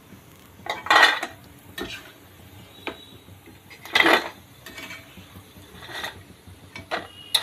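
A slotted steel ladle knocking and scraping against a metal kadhai and a steel plate as fried besan-coated peanuts are scooped out of the oil and tipped onto the plate. The loudest clatters come about a second in and about four seconds in, with a few lighter clinks between and after.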